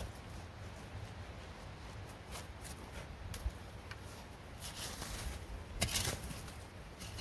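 Work boots tamping and scuffing loose soil, faint scattered crunches. About six seconds in, a shovel scrapes through the dirt and tosses it, the loudest sound.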